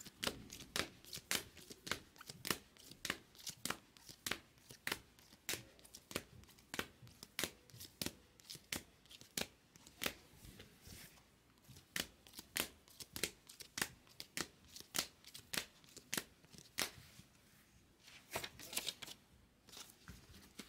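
A stack of Bowman Chrome trading cards being flipped through one card at a time, a sharp click with each card, about two to three a second, with short pauses about eleven and seventeen seconds in.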